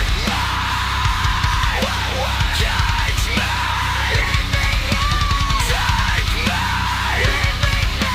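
Heavy metal music: a drum kit with rapid, even bass-drum strokes under a dense wall of guitars.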